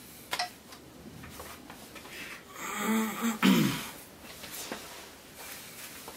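A man clearing his throat about three seconds in: a short pitched hum that drops away in a falling glide. A couple of soft clicks come just before it, near the start.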